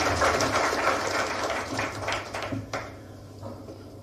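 Audience applauding in a hall, the clapping dying away about three seconds in.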